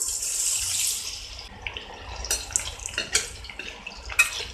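Sliced onions hitting hot oil in a steel pan for deep-frying: a loud burst of sizzling that eases after about a second and a half into steady frying crackle. A few sharp clinks of a spoon against the pan come through it.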